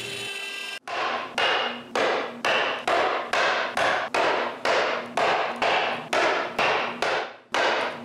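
Brief steady running of the CNC router, cut off abruptly, then regular sharp taps about two a second of a hammer driving a chisel through the small tabs that hold CNC-cut plywood parts in the sheet.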